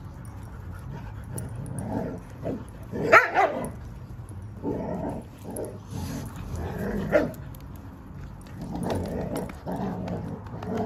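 Several dogs play-fighting, barking and growling; the sharpest, loudest barks come about three seconds in and again about seven seconds in, with rougher growly calls near the end.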